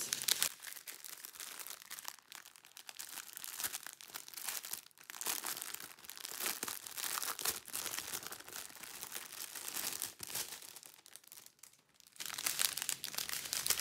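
Crinkling and rustling of thin clear plastic bags of round diamond-painting drills as they are handled and flexed in the hands, with a short lull near the end.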